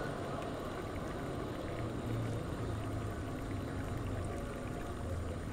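Steady outdoor city background noise, with a low hum that grows a little stronger about two seconds in.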